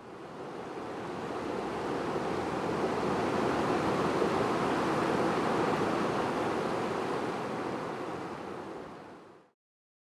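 A mountain river rushing over rocks: a steady wash of water noise that fades in over the first couple of seconds and fades out near the end.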